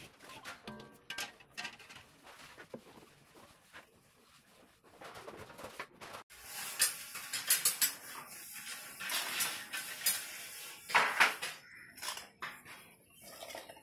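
Rolling pin rolled back and forth over crumbly besan (gram flour) mixture on a hard surface, crushing the lumps: a gritty rasping with sharp knocks and clatters. It is fainter for the first few seconds and louder after about five seconds.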